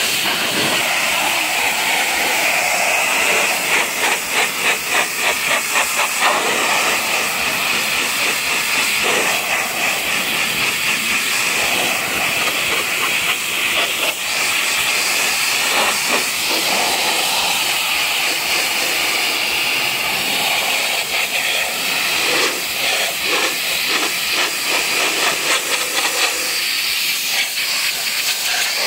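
Pressure washer jet hissing steadily as it blasts water against a car's body panels, rocker sill and wheel. At times the hiss flutters rapidly as the jet sweeps across the surfaces.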